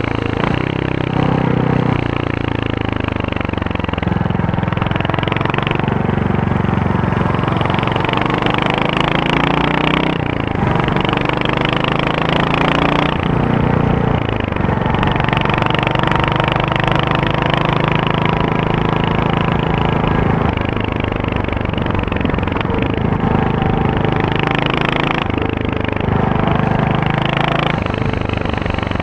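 Royal Enfield Hunter 350's single-cylinder engine running through its stock exhaust, a thumping note whose revs rise and fall several times, with sharp climbs about ten and thirteen seconds in.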